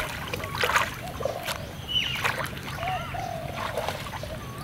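Shallow muddy water splashing in several separate splashes as hands dig and grope in the mud of a flooded rice field, with short wavering animal calls repeating in the background.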